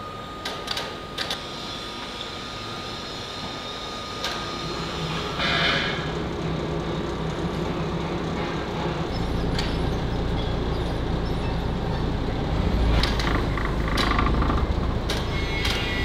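Foundry machinery as an overhead crane lifts a stack of steel moulding flasks: a few sharp metal clanks in the first seconds, then a deep rumble sets in about nine seconds in and grows louder.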